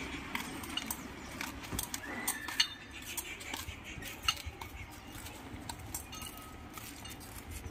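Metal chain hanging from a walking elephant's neck, clinking and jangling irregularly with each step, with a couple of sharper clinks.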